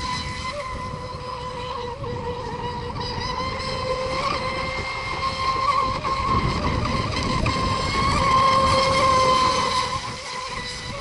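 Radio-controlled model racing boats running at speed on the water, their motors giving a steady high-pitched whine over the rush of the hulls. The whine grows louder about six seconds in, then falls back near the end.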